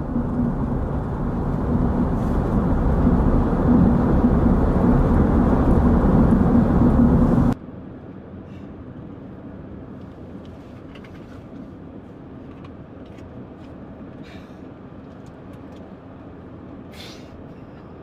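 Car cabin noise from driving: road and engine noise that grows louder for about seven seconds. It then cuts off abruptly to a much quieter steady hum with a few faint clicks.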